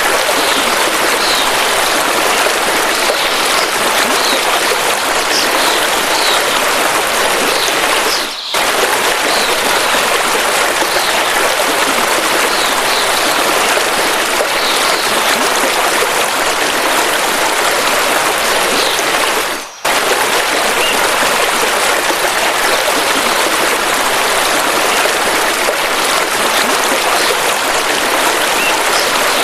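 River water rushing steadily, with short high bird chirps over it, most of them in the first half. The sound drops out for an instant twice.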